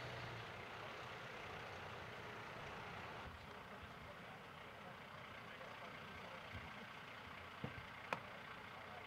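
Steady, fairly quiet running of vehicle engines left idling, heard as an even rumble and hiss, with two sharp clicks close together near the end.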